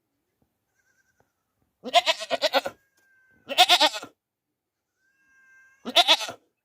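A goat bleating three times, each call a loud quavering baa lasting under a second.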